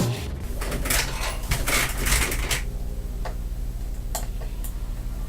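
Clicks and light clatter of small hard objects handled on a desk, such as a screwdriver and laptop parts being picked up and set down during disassembly. The clicks come thickly for about two and a half seconds, then only a few single taps follow over a steady low hum.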